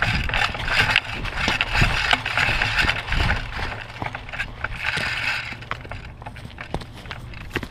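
Rustling and scraping with scattered light knocks, the noise of a player moving and handling gear.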